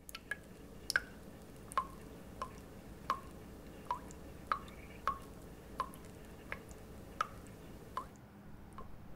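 Kitchen faucet dripping into a sink of dishes, a single drop with a short plop about every three-quarters of a second, over a low steady hum.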